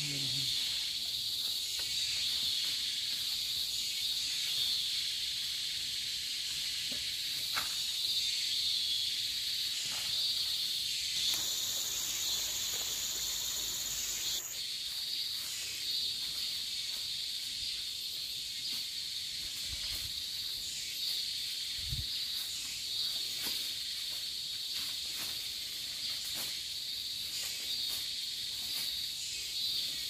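Steady, high-pitched chorus of forest insects, with a second, higher buzzing insect joining in for about three seconds a little before the middle. A few faint clicks, and two soft low thumps about two-thirds of the way through.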